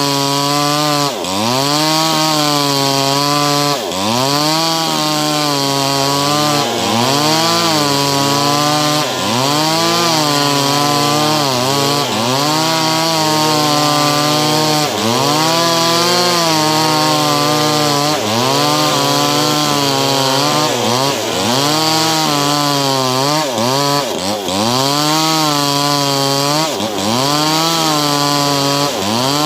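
A cheap small engine running fast and loud, its pitch dropping sharply and climbing back every one to three seconds, as if repeatedly put under load and released.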